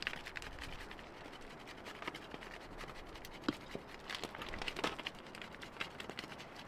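Parmesan being grated by hand on a small metal grater: a run of quick, uneven scraping strokes, with a couple of sharper clicks midway.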